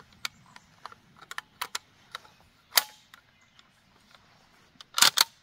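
Mossberg 20-gauge bolt-action shotgun being handled and its bolt worked: a string of light metallic clicks, a sharper click about three seconds in, and a quick cluster of loud clacks near the end.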